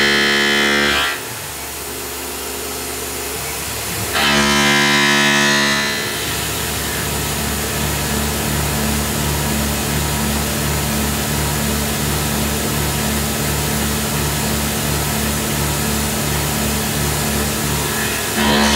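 CNC mill cutting an aluminum block with an end mill, a steady cutting noise that takes over from about six seconds in, with background guitar music that is louder in the first second and again between about four and six seconds.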